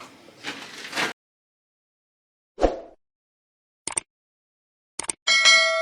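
Edited sound effects: a single soft thump, a few short sharp clicks, then a bell-like ding that rings on with several clear overtones.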